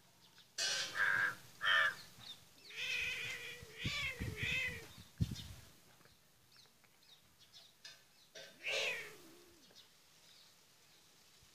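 A run of short, harsh animal cries: several in the first five seconds, one more just before the nine-second mark, with a few soft low thuds in between.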